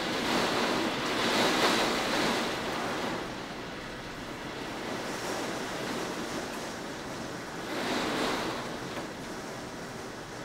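Wind of a severe thunderstorm gusting: a steady rushing noise that swells over the first two or three seconds and again about eight seconds in.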